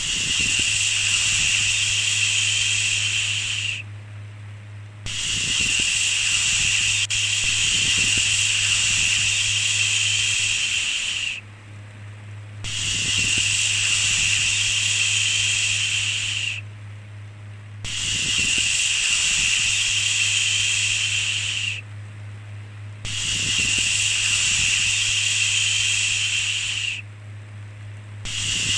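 A repeated 'shhh' shushing sound: long hissing shushes, most about four seconds and one about six, each followed by a pause of about a second. A steady low hum runs underneath.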